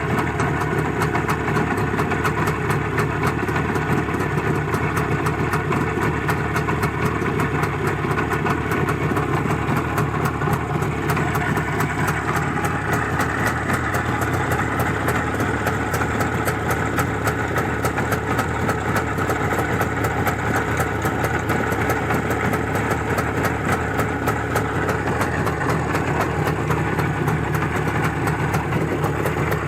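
IZh Jupiter-5 motorcycle's two-stroke twin engine running steadily at idle, the sound growing a little brighter about twelve seconds in.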